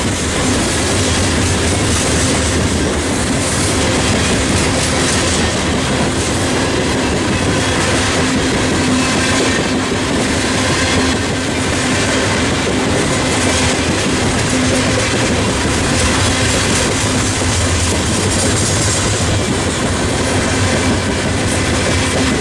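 Norfolk Southern coal train's steel-wheeled hopper cars rolling past close by: a steady, loud rumble and rattle of wheels on the rails, with a steady low tone running underneath.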